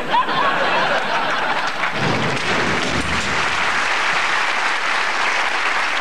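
Studio audience applauding steadily.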